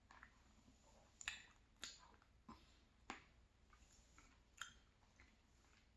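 Close-miked chewing of a mouthful of creamy salmon pie: soft, wet lip smacks and mouth clicks at irregular intervals, about five in all.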